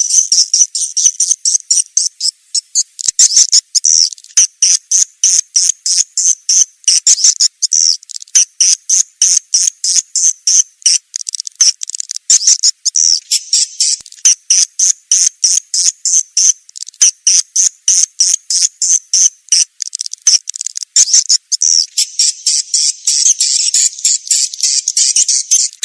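Swiftlet call recording: high-pitched chirps from swiftlets, repeating several times a second, of the kind played to lure swiftlets into a swiftlet house to nest.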